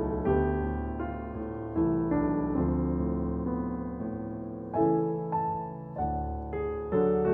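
Slow, gentle piano music: notes and chords struck about once a second or less and left to ring out.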